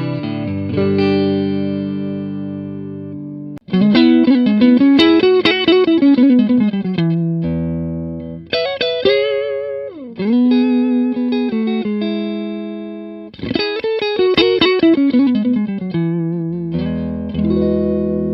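Electric guitar played clean through a Harley Benton Tube 15 valve amp: chords let ring, alternating with quicker strummed and picked passages. About ten seconds in, the pitch wavers and dips, as with a vibrato bar.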